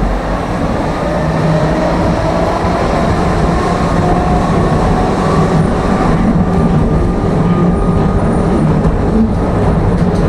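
Tram running, heard inside the car: a steady rumble of wheels on rails with an electric motor whine that slowly rises in pitch.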